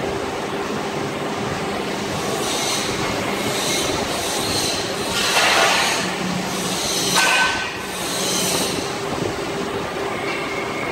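CNC drilling machine running: a steady hum from its drill spindles and gantry drive, with two louder noisy passages about five and seven seconds in as the heads move over the work.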